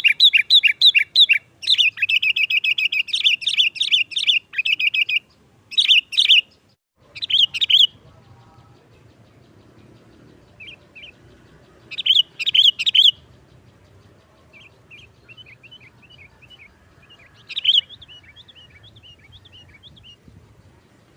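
Sooty-headed bulbul singing: fast runs of repeated sharp chirps for the first five seconds, then short loud bursts of chirping a few seconds apart with softer, scattered chirps between them.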